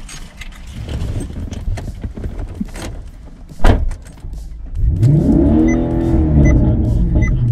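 Maserati GranTurismo S's V8 engine idling, heard from inside the cabin. A single sharp thump comes about halfway through, then the engine revs up and falls back over about two seconds.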